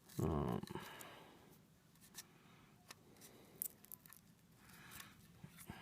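Light clicks and small scrapes from handling the small parts of a disassembled iPod, with one brief louder rustle just after the start.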